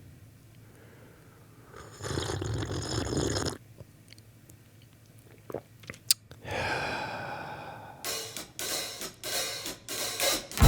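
A sequence of separate short kitchen sound effects: a hissing noise about two seconds in, a few sharp clicks midway, then a run of quick repeated knocks near the end.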